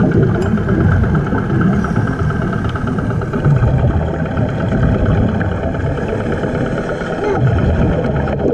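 An engine running steadily, heard underwater as a muffled rumble with an even, rapid pulse, most likely the motor that feeds air to the compressor diver or the boat above.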